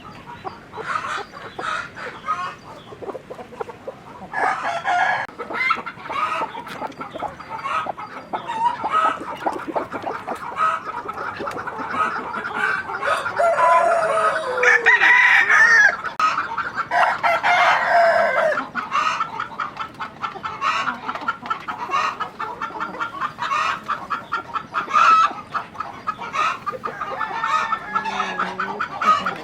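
A flock of chickens clucking, many short calls in quick succession, with louder drawn-out calls in the middle.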